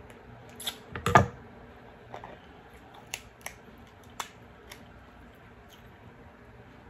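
Kitchen shears snipping through a cooked king crab leg shell and the shell being cracked apart by hand: a series of short sharp crunches and cracks, the loudest about a second in, then scattered smaller snaps over the next few seconds.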